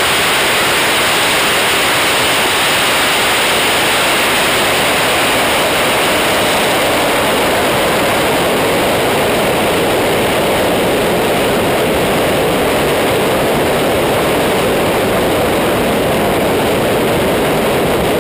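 Loud, steady wind noise rushing over a camera mounted on a Kawasaki ZX-10R sportbike travelling fast, with the motorcycle's engine under it and no distinct engine note. About halfway through the rush turns deeper.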